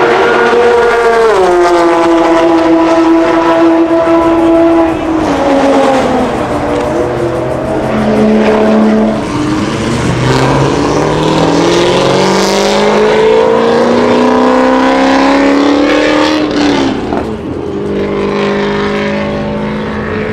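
Race car engines running hard on the circuit: one high engine note drops in pitch about a second in as a car goes by, and later another climbs steadily through the revs before falling away about three quarters of the way through.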